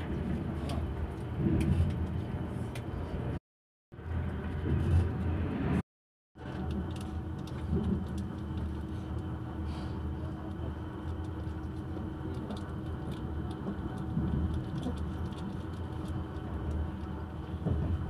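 Sleeper train running at speed, heard from inside the carriage: a steady low rumble of wheels on the track with occasional light clicks. The sound cuts out twice, briefly, about three and a half and six seconds in.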